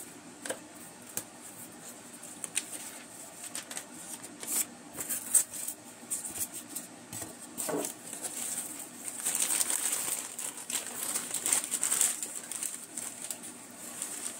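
Crumpled brown kraft packing paper rustling and crinkling as it is pulled out of a cardboard shipping box, with light taps and scrapes of cardboard and paper. Scattered small sounds at first, then a dense, continuous rustle through the second half.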